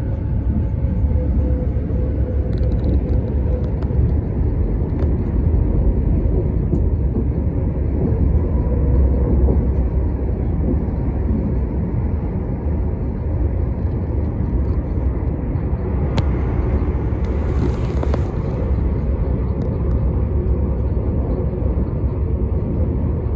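Commuter train running at speed, heard from inside the carriage: a steady low rumble of wheels on rail and running gear. A brief hiss rises over it about two-thirds of the way through.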